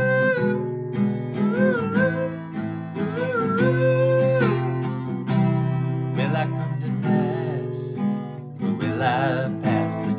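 Yamaha cutaway acoustic guitar strummed in a steady rhythm, with a man singing over it in several phrases of long held notes that bend in pitch.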